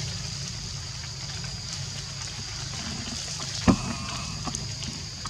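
Forest ambience: a steady high-pitched insect drone over a low rumble, with one sharp click a little past halfway through.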